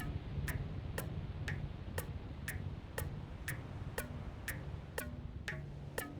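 A steady percussion beat of sharp clicks, two evenly spaced strikes a second, each with a short ringing tail, over a low droning hum.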